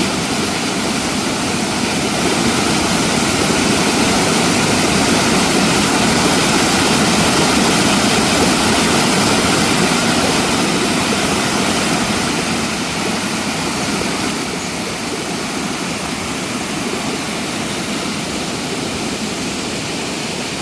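Mountain stream rushing over rocks, a loud, steady roar of water that eases slightly partway through.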